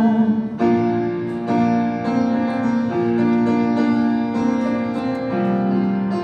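Live band playing an instrumental passage, led by sustained keyboard chords that change about once a second.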